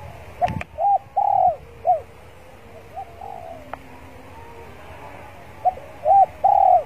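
Spotted dove cooing: two phrases, one about a second in and one near the end, each a short coo, a longer drawn-out coo and a short closing coo. A sharp click sounds about half a second in.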